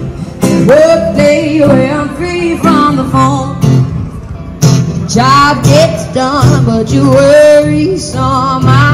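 A woman singing into a microphone while strumming an acoustic guitar: an amplified street-busking song.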